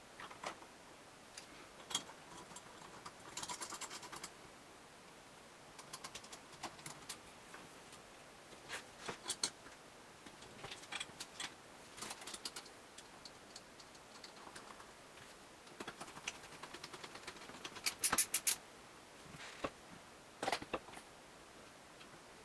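Irregular light clicks, taps and short rattles, like small hard parts being handled and set down, with a quick run of clicks about 18 seconds in.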